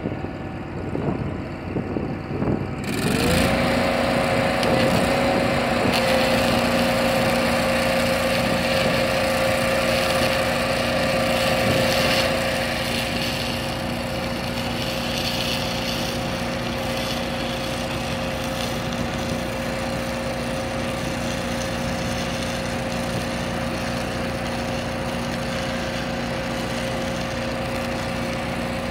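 Engine-driven stick welder's engine speeding up with a rising whine about three seconds in as the arc is struck, then running steadily under welding load. The arc crackles and hisses over it, loudest for the first ten seconds of the weld.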